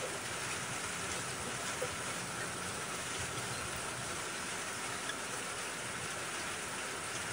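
Steady rain falling, an even hiss of rain on surfaces.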